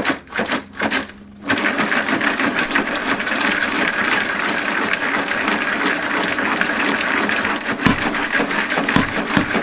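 Popped popcorn being shaken in a lidded plastic bowl, the kernels rattling and tumbling against the plastic as they are coated with seasoning paste. The rattling starts about a second and a half in after a few clicks, and runs steadily, with a couple of low thumps near the end.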